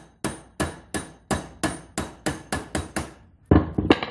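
A hammer tapping a steel pin punch, about three strikes a second, driving a rivet out of the roller nose of an Oregon chainsaw guide bar held in a vise; the rivet has started to move. A louder clatter of metal knocks comes near the end.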